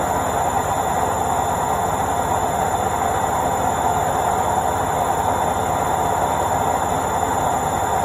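Indesit IWC71252 front-loading washing machine on its spin cycle: the drum spinning at a steady speed with a constant, even mechanical hum and rush.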